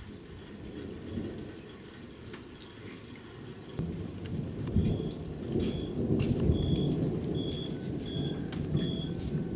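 Thunder rumbling, swelling up about four seconds in and rolling on, over rain falling and dripping. A short high beep repeats about once a second in the second half.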